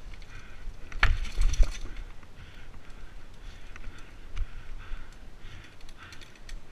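Mountain bike rolling down a dirt forest trail: tyre noise and light rattles of the bike, with a burst of heavy knocks and a thump about a second in as the bike bumps over rocks.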